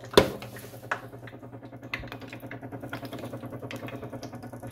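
Metal tongs clicking against a plastic tray and the wire basket of an electric deep fryer as raw chicken wings are set in, with a sharp click just after the start and another at the end. Under the clicks runs a steady low hum with a fast, even flutter.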